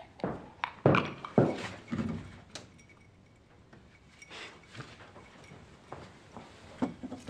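Scattered short knocks and clinks, a dozen or so at irregular intervals, most of them in the first two and a half seconds and sparser after.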